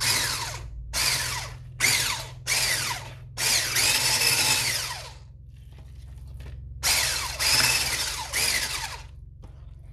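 Electric hand mixer with wire whisk beaters stirring a thick spread in a bowl, switched on and off in a series of short bursts, with a longer pause around the middle.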